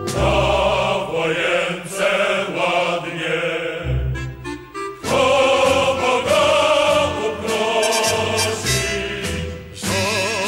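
Background music: a choir singing over instrumental accompaniment, with a brief lull about four seconds in.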